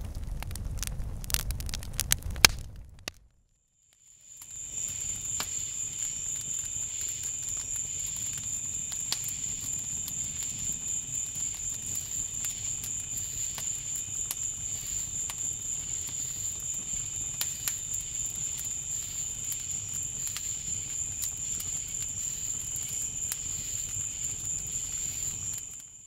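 Wood campfire crackling and popping over a low rumble of burning, broken off after about three seconds. After a second's silence the fire crackles again, sparser pops over a steady high-pitched ringing tone that stops just before the end.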